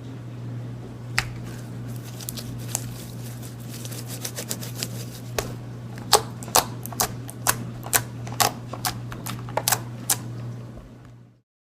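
Slime being squished and played with, its trapped air popping in sharp clicks that come thick and fast in the second half, over a steady low hum. The sound cuts off suddenly near the end.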